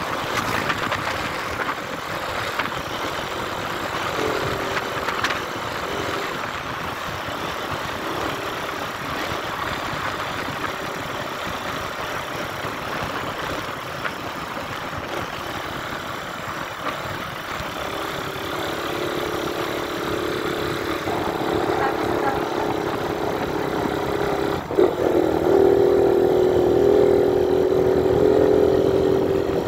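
Motorcycle engine running while riding, with wind rushing over the microphone. The engine note comes up about two-thirds of the way through and grows clearly louder over the last few seconds.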